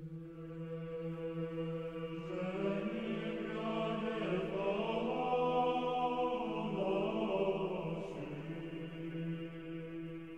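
Slow vocal chant: a melody sung over a steady held drone note, fading in at the start.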